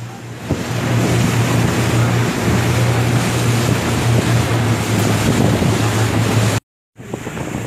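Speedboat engine running steadily at speed, a constant low hum under the rush of wind and spray from the hull, recorded on board. It drops out for a moment near the end, then resumes.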